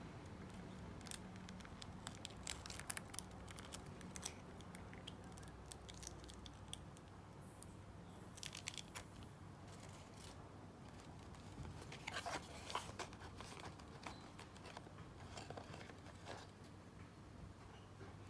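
A small plastic chilli sauce sachet crinkling as it is handled and torn open, in several separate spells of sharp crackling.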